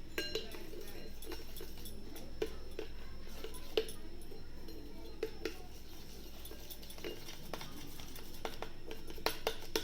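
Scattered light clicks and clinks of a spoon against a bowl while handling the ginger-turmeric-honey mixture, over a steady low hum.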